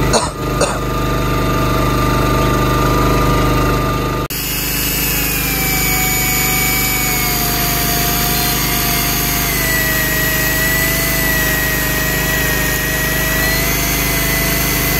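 A boat's engine running steadily. About four seconds in the sound changes abruptly to a different engine note with a slight waver in pitch, which then holds.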